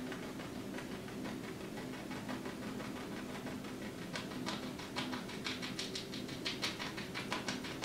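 A splayed natural-bristle tree and texture brush stippling paint onto stretched cotton canvas: a run of quick soft dabbing ticks, several a second. They get louder and more frequent about four seconds in.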